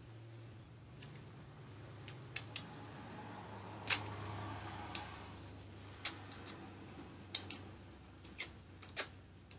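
Mouth and finger smacks as chocolate is licked off the fingertips: short, wet-sounding clicks scattered unevenly, a dozen or so, over a faint low hum.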